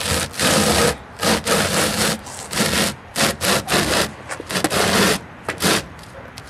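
Cardboard box scraping along asphalt as it is shoved forward in a series of short, uneven pushes.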